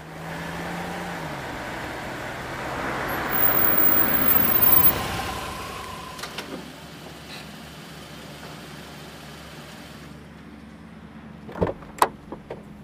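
A minivan drives up and comes to a stop, loudest about four to five seconds in, then settles to a quieter steady hum. Near the end come a few sharp clicks as its door is unlatched.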